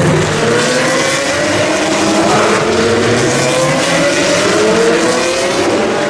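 Open-wheel single-seater race cars running at full throttle, their engine notes rising in overlapping steps as they pull through the gears.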